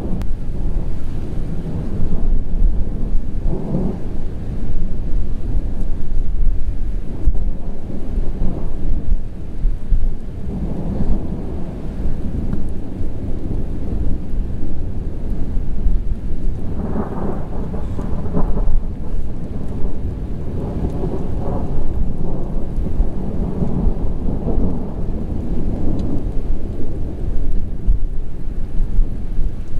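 Thunder from a supercell thunderstorm rumbling almost without pause, swelling into louder rolls several times, strongest about 17 seconds in, over the hiss of steady rain.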